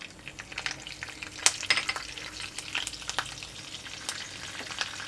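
Hot oil sizzling and crackling around freshly added curry leaves, cumin seeds and dried red chillies: the spluttering of an Indian tempering (phodni). There are many scattered sharp pops over a steady sizzle.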